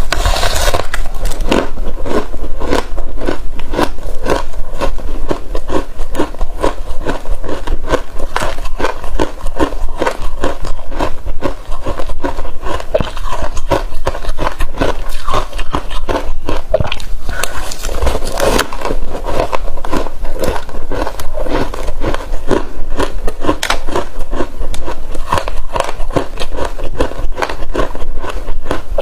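Loud biting, crunching and chewing of frozen passion fruit ice, a dense unbroken run of cracks and crackles.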